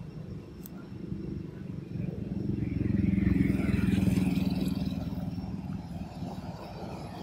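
A motor vehicle passing by: a low engine hum that swells about three seconds in and then fades away.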